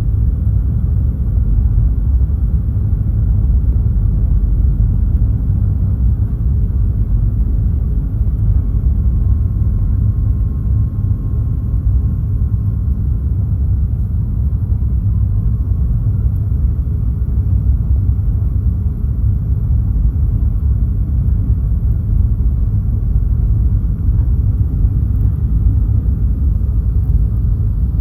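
Boeing 737-800 cabin noise heard from a passenger seat: a loud, steady low rumble of the CFM56 engines and airflow.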